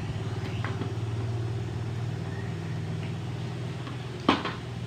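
A steady low mechanical hum, like a motor running, with one sharp knock about four seconds in.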